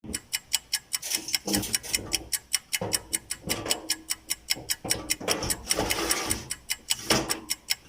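Rapid, regular ticking, about four to five ticks a second, over softer irregular sound in the background.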